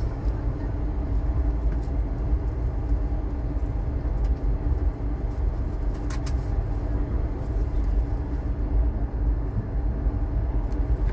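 Passenger train running along the track, a steady low rumble with a faint hum and a sharp click about six seconds in, heard from aboard.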